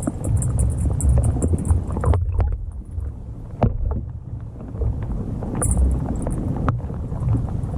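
Underwater recording of a rat-style topwater fishing lure being worked across the surface: a low rumble of churning water with irregular knocks and clicks from the lure. The sound drops off about two seconds in, then picks up again with a sharp knock.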